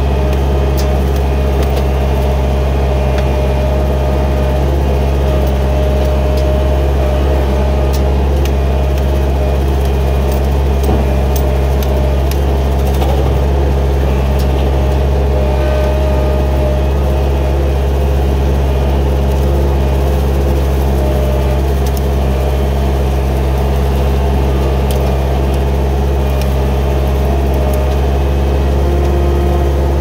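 Gehl 4625SX skid steer's diesel engine running steadily: a constant low drone with scattered faint ticks.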